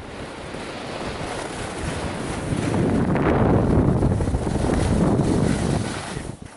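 Wind rushing over the microphone mixed with the hiss and scrape of skis on packed snow during a downhill run. The rush swells past the halfway point and drops off sharply near the end as the skier slows.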